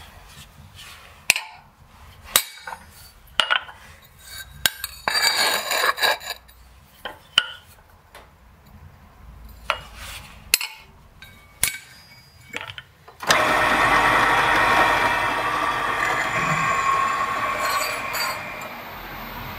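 Light, sharp metallic taps of a hammer on a hand punch held against a hammer-textured steel plate, about a dozen irregular strikes with a short rougher stretch around five seconds in. About two-thirds through, a loud steady machine noise starts abruptly and runs on.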